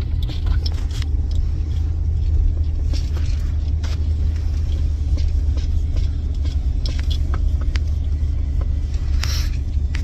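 Low rumble of a vehicle driving over a rough grass field, heard from inside the cabin, with scattered knocks and rattles as it bumps along.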